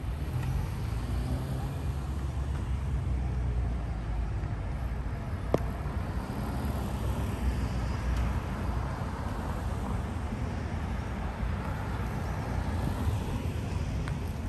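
Street traffic: cars passing slowly through an intersection over a steady low rumble, with a single sharp click about five and a half seconds in.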